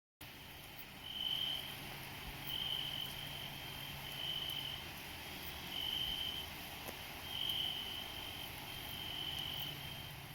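A cricket-like insect trilling in short, high phrases of about half a second, repeated about every one and a half seconds, over a steady outdoor hiss.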